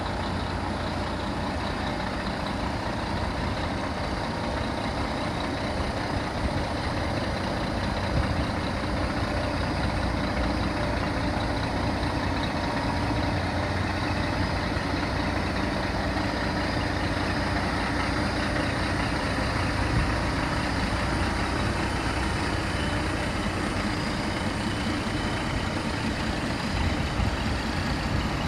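Scania G480 hooklift truck's six-cylinder diesel engine running steadily, an even low rumble with no revving.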